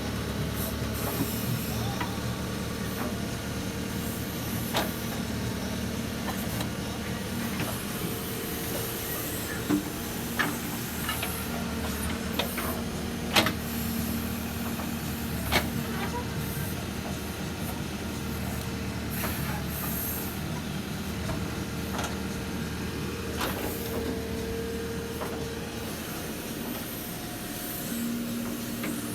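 Case 770FX backhoe loader's diesel engine running steadily under work, its note shifting a little now and then, with several sharp knocks scattered through, the loudest about a third of the way in.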